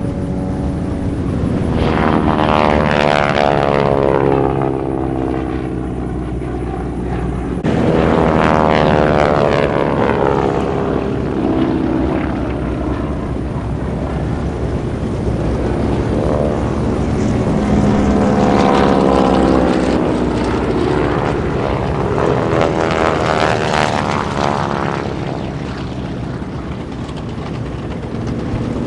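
Radial-engined warbirds (T-6 Texans and BT-13 Valiants modified to look like Japanese Zeros, Kates and a Val) make low passes one after another. Each engine's note falls in pitch as the plane goes by. The sound jumps abruptly about eight seconds in.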